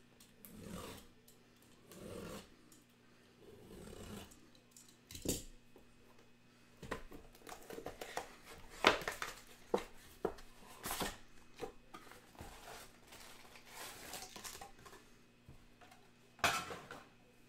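Hands handling a cardboard trading-card box and opening it: soft sliding and rubbing of the boxes at first, then a run of sharp clicks and crackles as the box is opened. Near the end comes a loud rustle as the foil card packs are spread out.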